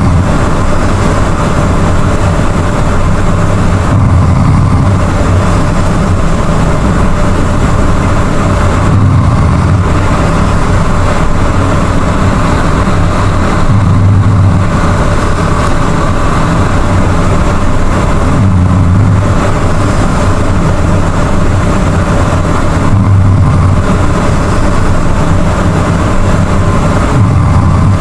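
A person snoring loudly with a deep, rattling snore that comes about every four and a half seconds, in a steady sleep breathing rhythm.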